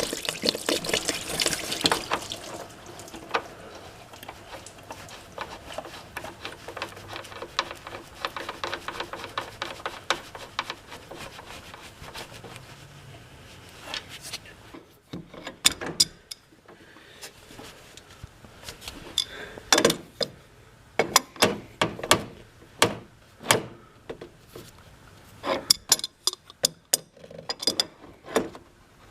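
Antifreeze pouring and splattering into a drip pan from the radiator's fan-switch hole as the old switch comes out, followed by scattered metallic clinks and knocks of the wrench and parts.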